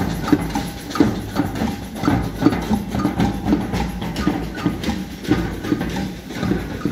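Samba band percussion playing a steady beat: drums with sharp clicking strokes on top, about two strong hits a second.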